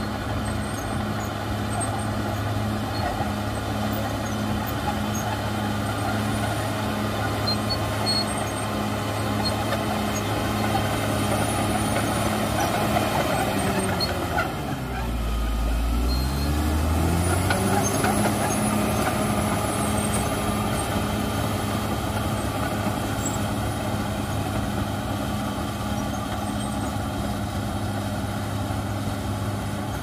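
Caterpillar D6R XL bulldozer's diesel engine running steadily as the machine pushes earth with its blade. About halfway through, the engine pitch drops sharply and climbs back up.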